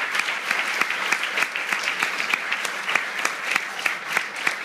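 Audience applauding: many hands clapping in a steady, dense patter that holds at an even level.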